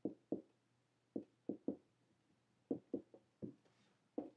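Marker writing on a whiteboard: about ten short, dull knocks and taps in irregular clusters as each letter is stroked onto the board.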